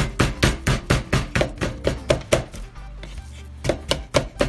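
Wooden pestle pounding cooked sweet potato in an earthenware mortar: quick thuds at about four strokes a second, with a brief pause a little after three seconds in. Background music plays underneath.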